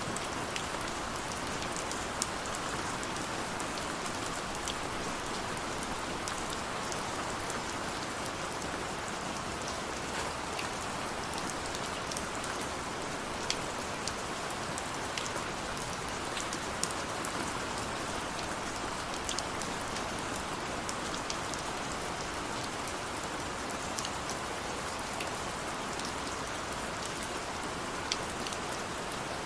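Steady rain falling on a surface, an even hiss with many individual drops striking sharply throughout.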